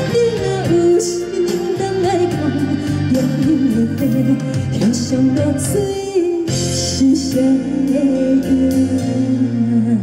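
A woman singing a song with vibrato over sustained instrumental accompaniment, in a live concert performance.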